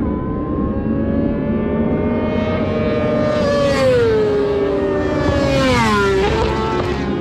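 Sport motorcycle running hard on a race track, its high-revving engine note falling sharply in pitch twice as it passes.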